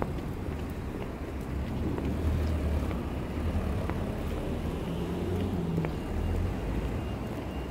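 Road traffic: cars and vans passing on a town street, a steady low rumble that swells about two seconds in and again around six seconds, with a few faint clicks.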